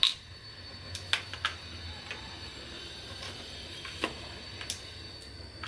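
Several sharp, separate clicks and taps as plastic syringes and a utility knife are set down on a hard countertop, the loudest at the very start, over a faint steady background hum.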